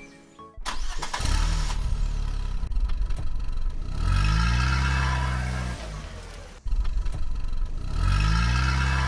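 A car engine starting with a sudden loud burst about half a second in, then running with a low rumble and revved twice, its pitch rising and falling each time.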